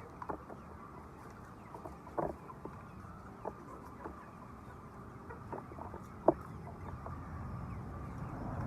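Chickens clucking now and then: short scattered calls over a low steady background, the sharpest about six seconds in. A low rumble builds near the end.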